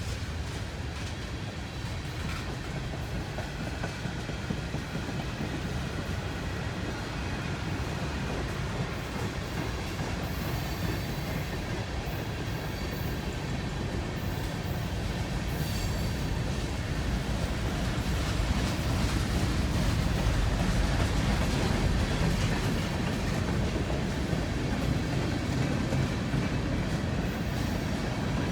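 Freight train's cars rolling past on steel rails, a steady rumble that grows louder about two-thirds of the way through.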